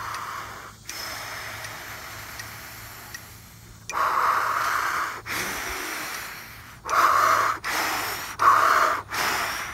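A man breathing forcefully in and out through pursed lips with a hand held before his mouth, paced to a metronome count as a lung-building drill. First comes one long breath of about three seconds. Then come two louder breaths of about a second and a half each, and near the end four quick, sharp breaths, in and out twice.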